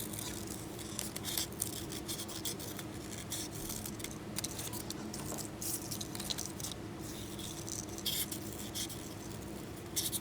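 Scissors cutting paper in short irregular snips, cutting out paper dog ears, over a steady low room hum.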